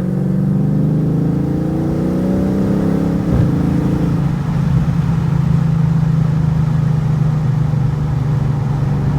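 Cabin sound of a Dodge R/T's swapped-in 6.4-litre (392) HEMI V8, cammed, with long-tube headers and a 3-inch exhaust, under light throttle. The engine note climbs for about three seconds, breaks off at a gear change, then settles into a steady cruising note.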